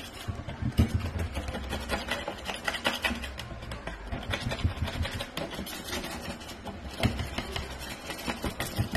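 Metal scraper blade scraping built-up grime off a wooden cabinet edge in rapid, irregular strokes.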